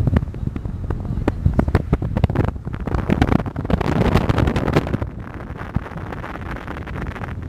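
Wind buffeting the microphone at a car's open window, with crackles and thumps over the car's road noise. The buffeting is heaviest about halfway through.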